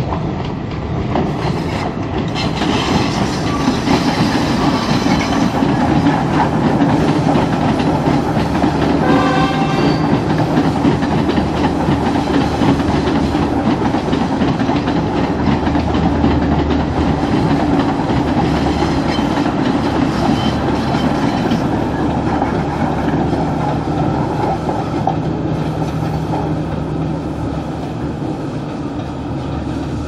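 Sri Lanka Railways diesel train passing along the track below, its engine running with a low hum and its wheels rattling over the rails. A brief horn blast sounds about nine seconds in.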